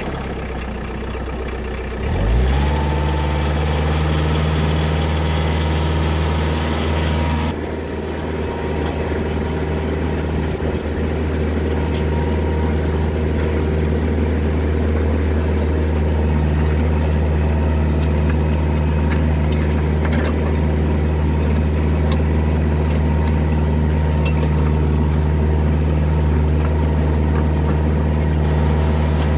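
Compact diesel tractor engine running just after start-up. About two seconds in it is throttled up, rising in pitch to a higher engine speed, and it then runs steadily.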